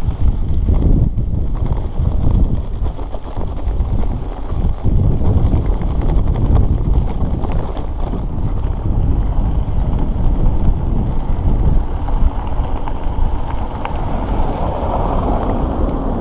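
Wind buffeting the microphone of a handlebar camera on a moving bicycle, over the low rumble of the bike rolling along a rough dirt road. Near the end a car passes close by on the dirt road.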